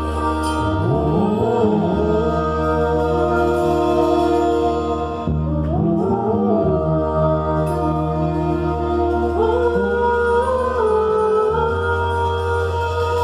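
Slow music of long held chords over a steady low bass, with a voice singing a few wordless gliding phrases.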